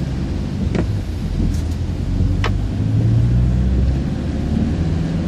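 A car engine running steadily while the car drives along a flooded road, with two short sharp sounds, one just under a second in and one about halfway through.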